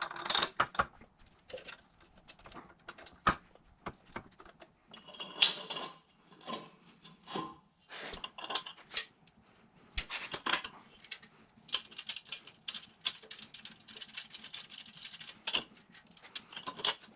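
Hand tools and metal parts clinking and clattering, with scattered sharp knocks and stretches of jingling metal, as work goes on at the vehicle.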